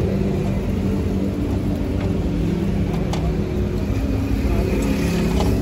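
Steady low rumble of running engines with a droning hum, and a few faint clicks.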